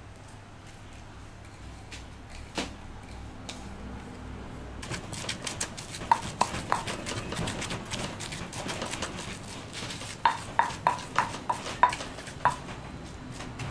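A wooden pestle pounding ingredients into a paste in a heavy stone mortar. There are a few soft clicks as the greens go in, then from about five seconds in a run of sharp knocks of wood on stone, loudest in a quick series of about three strikes a second near the end.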